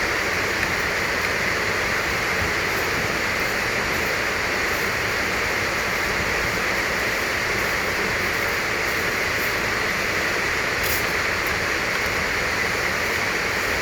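Steady, even rushing hiss with no distinct events, the constant background noise of the recording.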